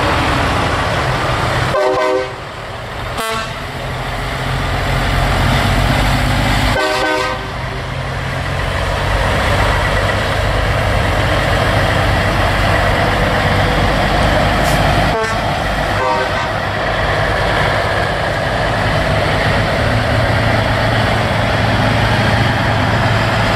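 Big-rig diesel trucks driving past one after another, their engines running with a steady low rumble, with short air-horn blasts about two seconds in, again around seven seconds, and a fainter one around fifteen seconds.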